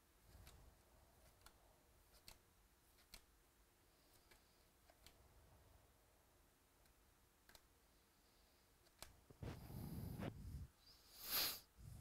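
Baseball cards being flipped through by hand: soft clicks about once a second as each card slides off the stack. Near the end come two louder rustles of cards shuffling, the second the loudest.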